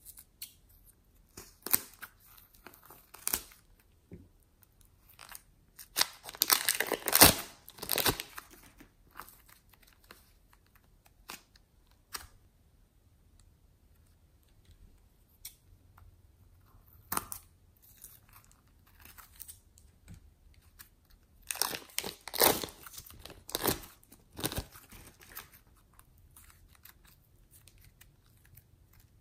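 Plastic piping bags of slime crinkling and crackling as they are handled and squeezed, in several separate bursts.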